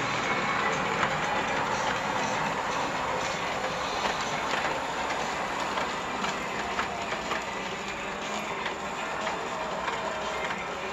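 O scale brass model of a Chicago & North Western E4 Hudson steam locomotive running on metal track: a steady rumble of wheels on the rails with many small clicks.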